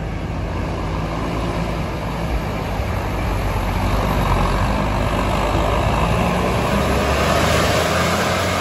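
Large bus engine running with a steady low hum. A rushing noise swells about halfway through and grows hissier near the end, as the bus gets louder.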